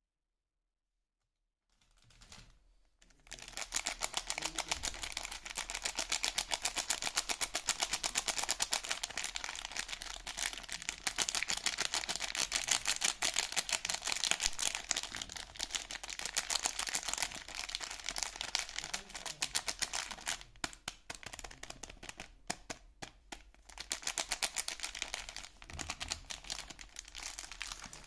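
Soap packaging being handled and unwrapped: a dense run of fast crackles and clicks that starts about two seconds in, with a few short pauses near the end.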